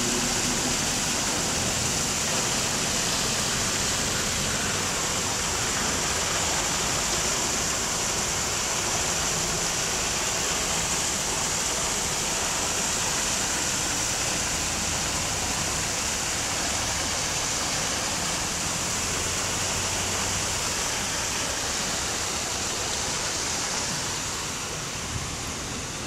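Water pouring in a thin sheet over a stone wall and splashing into a foaming channel below: a steady rushing hiss of a small cascade, easing slightly near the end.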